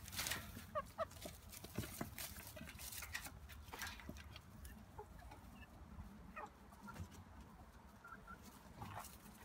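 Hens giving short, soft clucks while pecking slugs off a metal hand trowel, with scattered sharp taps and rustling in dry straw.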